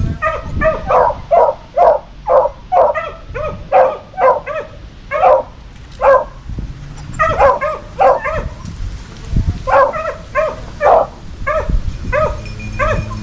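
Hound puppies yipping and barking in quick high yelps, about two to three a second with a short lull midway, as they trail a rabbit by scent.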